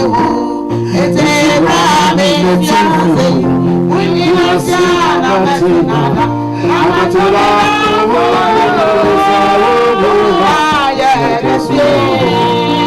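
Church gospel song performed live: a singing voice with wavering, melismatic lines over instrumental accompaniment with steady held bass notes.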